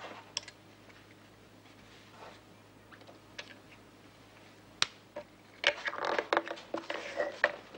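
Light handling sounds of a small lidded box: a few isolated clicks, then a quick run of clicking and rustling about two seconds before the end, over a faint steady hum.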